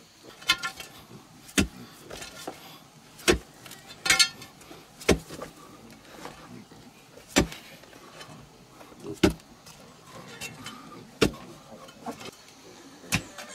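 A digging pick chopping into packed clay soil, one sharp strike every one to two seconds, about nine in all.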